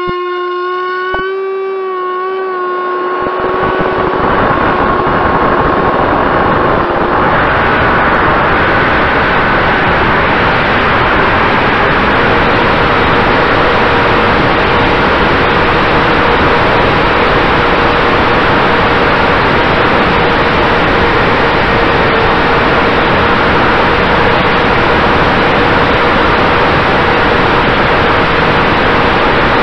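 Electric motor and propeller of an FPV flying wing, heard from its onboard camera: a pitched whine as the motor spins up at launch, then within a few seconds a loud, steady rush of wind and propeller noise in flight.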